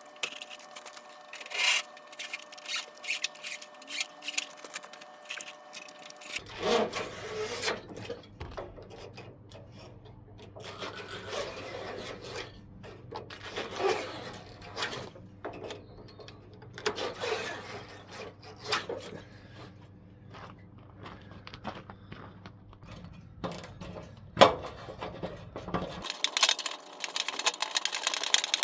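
Irregular scraping, rubbing and knocking of metal parts being worked by hand, with one sharp knock near the end. A steady low hum starts about six seconds in and cuts off shortly before the end.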